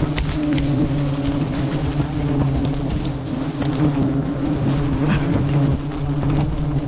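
Dense buzzing of a swarm of giant honeybees (Apis dorsata) flying around the microphone close to their open comb, a steady loud hum with occasional faint clicks.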